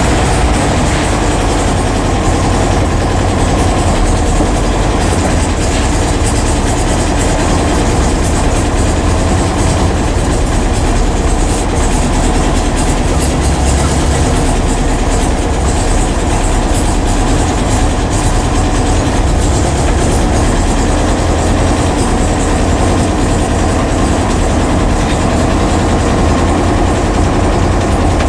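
A 1966 Porsche 912's air-cooled flat-four engine running steadily while the car is driven, heard from inside the cabin.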